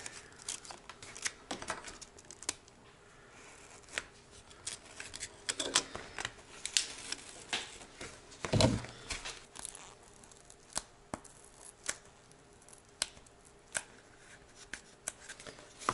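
Foam padding in a helmet cheek pad being cut and torn away: scattered sharp clicks and short tearing crackles, with one louder knock a little past the middle.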